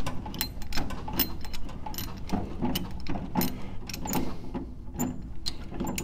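Metal hand tool clicking in quick, irregular strokes as a hydraulic brake light switch that has just been broken loose is unscrewed from its brake-line fitting.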